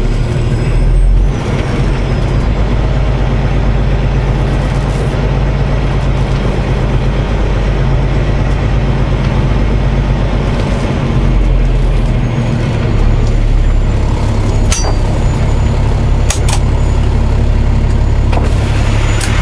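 Diesel truck engine running steadily, heard from inside the cab as a deep, even hum. A few sharp clicks sound in the last few seconds.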